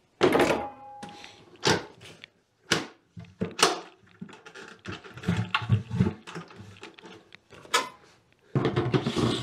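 Gamma Seal lid being forced down onto the rim of a plastic bucket: a run of sharp plastic knocks and duller thumps as it is pressed and struck into place, a one-way fit that does not come off.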